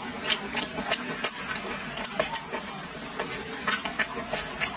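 Close-miked chewing of a mouthful of braised pork belly, with wet mouth clicks and smacks scattered irregularly throughout.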